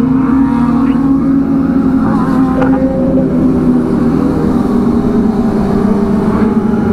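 Several Kawasaki ZX25R 249 cc inline-four motorcycle engines running together on a group ride. One loud, steady engine note dominates, while other bikes' notes slide gently up and down in pitch around it.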